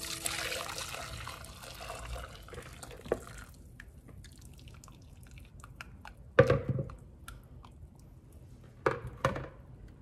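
Lemon-boiling water poured through a metal sieve of boiled lemon pieces into a saucepan, splashing steadily for about three and a half seconds, then dripping from the sieve. A few sharp knocks follow, the loudest about six and a half seconds in and two more near nine seconds, as the sieve and bowl are handled.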